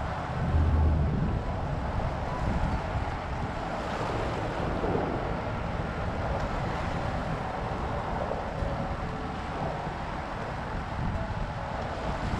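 Wind buffeting the microphone over choppy bay water washing against rock riprap, with a strong low gust about half a second in.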